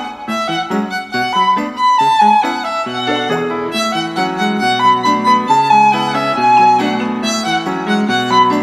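Background music: an instrumental tune with a melody line moving over changing bass notes.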